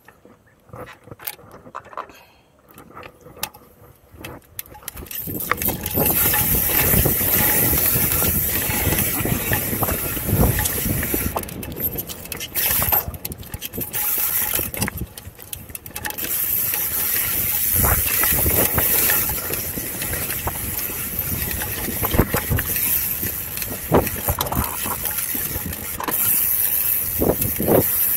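Wind rushing over a bike-mounted camera's microphone, with the mountain bike rattling and clattering as its tyres run over a rough dirt trail on a fast descent. It starts about five seconds in after a quieter opening and carries on, with occasional sharper knocks from bumps.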